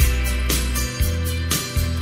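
Instrumental rock band music with no singing: strummed guitar over a bass line and a drum beat.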